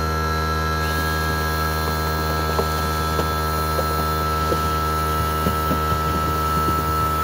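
Homemade air-compressor-driven aircrete foam maker running: its pump motor hums steadily, and a hiss of air joins about a second in as foam is generated.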